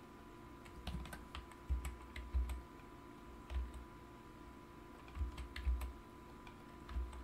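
Computer keyboard keys and mouse buttons clicking at an irregular pace, several keystrokes landing with a low thud.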